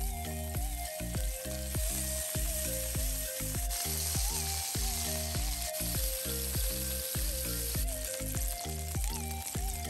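Salmon fillets sizzling in hot oil in a frying pan, a steady hiss as they are turned with a spatula. Background music with a steady beat plays under it.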